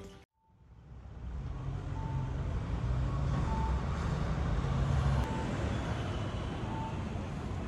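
Background music cuts off right at the start, and street traffic rumble fades in. Over the rumble, a short electronic beep repeats about every one and a half seconds.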